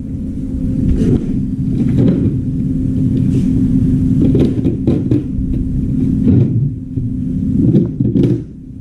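A steady low machine hum, with several short knocks and clatters over it.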